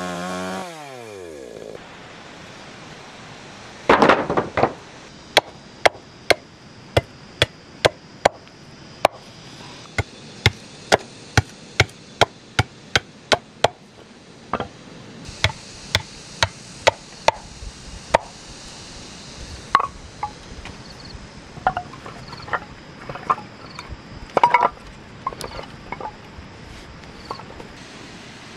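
A chainsaw engine winds down and dies in the first second or two. Then a hand tool strikes wood again and again, in steady blows about two a second for several seconds, then in looser, irregular knocks.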